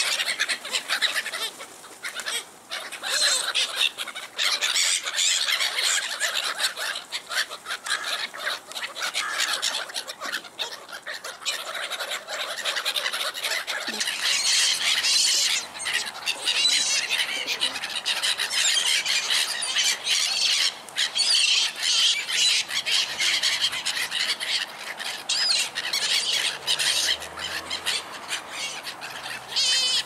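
A flock of black-headed gulls squabbling over food: a dense, continuous clamour of harsh calls and squeals, with wings flapping.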